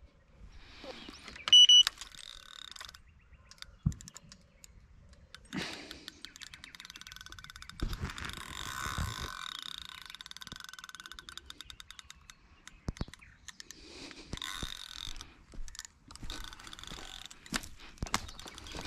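A carp bite alarm gives a short high beep about a second and a half in. Then a fishing reel clicks rapidly in long ratcheting runs, broken by knocks from handling the rod.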